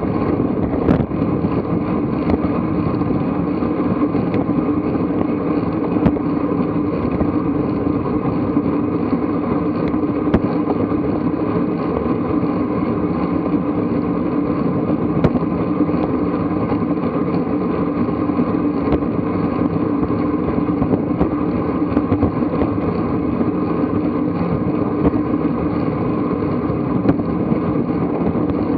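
Steady wind rush on a bicycle-mounted camera's microphone and the bicycle tyre's rumble on asphalt while riding at speed, with a few faint ticks.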